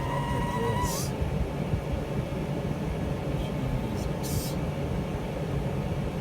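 A Lennox gas furnace running, with a steady low rush of blower air. For about the first second a thin whistle sounds, then stops: air being sucked in through the gap between the cabinet metal and the drain pan at an opening cut into the cabinet. Two short hisses come about a second in and about four seconds in.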